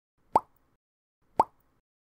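Two identical short plops about a second apart, each bending quickly upward in pitch, with dead silence between: a repeated editing sound effect.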